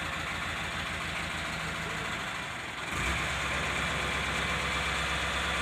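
Diesel engine of an Escorts Hydra 14 mobile crane running at idle while it holds a suspended load; about three seconds in the engine note steps up and gets louder, as if throttled up.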